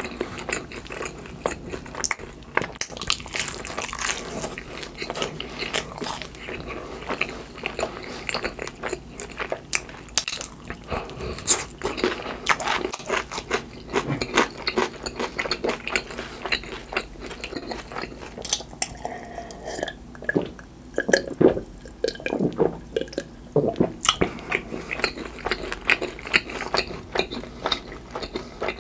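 Chewing a mouthful of fried hash brown topped with mashed avocado: a dense, irregular run of short clicks and wet mouth sounds.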